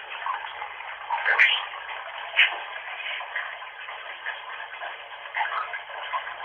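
Bathwater running from a tap, a steady hiss heard through a Nokia mobile phone's narrow-band recording, with two brief louder spikes about one and a half and two and a half seconds in.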